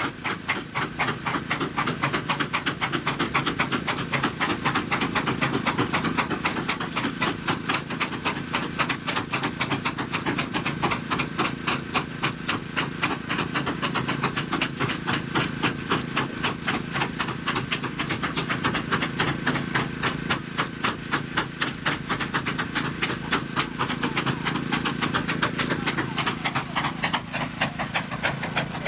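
Several steam traction engines working hard under a heavy haulage load of about 90 tons, their exhausts chuffing in a rapid, steady rhythm of beats with hissing steam throughout.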